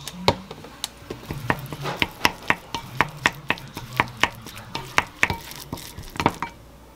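Wooden spoon stirring chopped boiled egg and mayonnaise in a glass bowl, knocking against the glass in quick, irregular clicks. The clicks stop shortly before the end.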